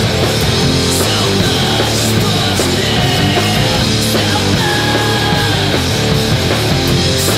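Loud, driving rock music: distorted electric guitars over bass and a full drum kit, with cymbal crashes.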